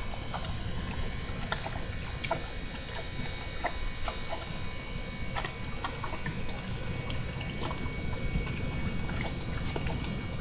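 Horse chewing feed and hay, short crisp crunches about once or twice a second over a steady low background rumble.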